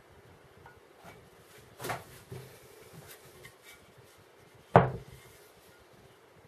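Crossbow riser and limbs being handled on a board: a soft knock about two seconds in, then one sharp clunk nearly five seconds in as the assembly is set down, with light rubbing and clicks between.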